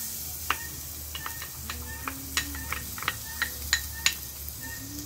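A little cooking oil poured into an aluminium saucepan over an open wood fire, sizzling with a soft hiss and many sharp scattered crackles and pops.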